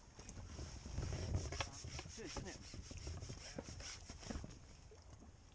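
Landing-net pole being drawn back in across the angler's seat box and tackle, making irregular rubbing and scraping noises with small clicks and knocks, busiest between one and two seconds in, over a low wind rumble on the microphone.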